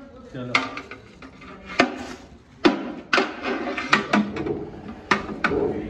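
Metal ladles knocking and scraping against large metal cooking pots as rice is scooped out, with several sharp, irregular clacks.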